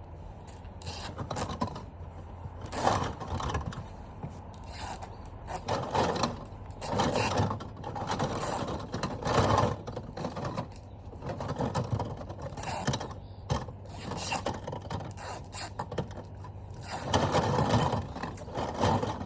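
PVC plumbing fittings being handled and rummaged through, with irregular scraping and clattering of plastic parts.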